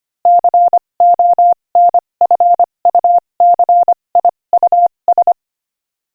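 Morse code at 25 words per minute: a single steady beep keyed on and off in short and long pulses, grouped into letters with small gaps between them. It stops about five seconds in.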